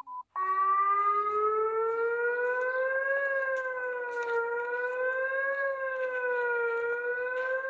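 Emergency alert siren sounding several tones at once, starting about half a second in. Its pitch climbs slowly, then wavers gently up and down every couple of seconds.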